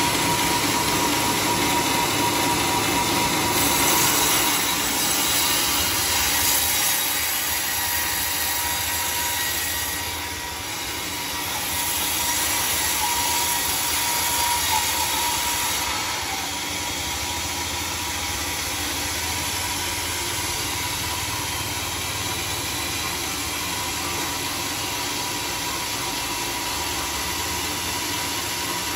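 Band sawmill running steadily, its motor and blade making a continuous noise with a thin high whine; it eases off a little about sixteen seconds in.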